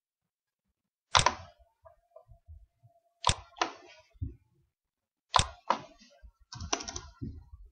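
Computer mouse and keyboard clicks: several sharp, separate clicks at irregular intervals.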